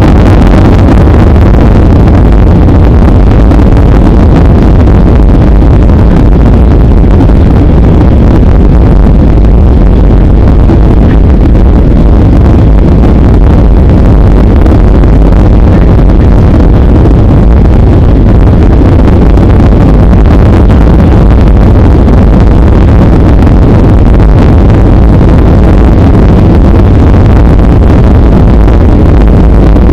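Loud, steady cabin noise inside a Ryanair Boeing 737 on approach to land: the jet engines and the air rushing past the airframe make an even, deep rumble.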